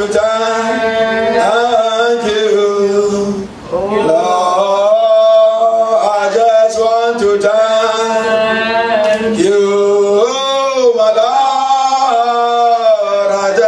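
A man singing a slow thanksgiving worship song in long held notes that slide in pitch, with a brief break about three and a half seconds in. A steady low note is held underneath the voice.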